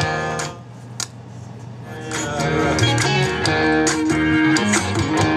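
Guitar-led background music. It thins out briefly about half a second in and picks back up around two seconds in.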